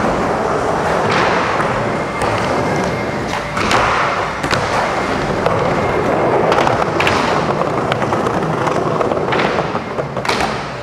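Skateboard wheels rolling steadily over plywood ramps, broken by several sharp clacks and thuds of the board striking and landing on the wood.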